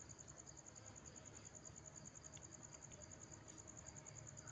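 Faint crickets chirping, a fast, even, high-pitched pulsing trill.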